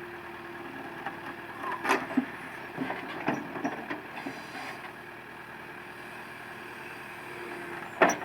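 Caterpillar 428C backhoe loader's diesel engine running steadily, with sharp metallic knocks from the working machine about two seconds in, a few lighter ones after, and the loudest near the end.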